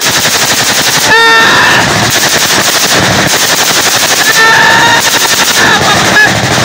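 Sustained automatic gunfire, shots following one another rapidly without a break.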